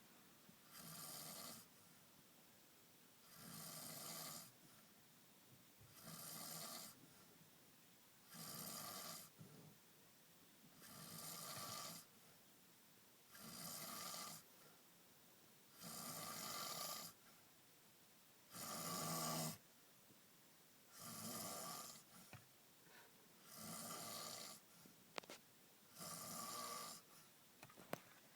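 A person snoring in their sleep: a regular run of snores, each lasting about a second, one about every two and a half seconds.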